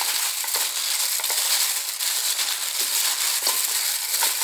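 Plastic-gloved hands tossing sauced chicken feet with sliced green mango and kumquats in a stainless steel bowl: a continuous wet squishing and rustling, with a few light clicks of pieces knocking together.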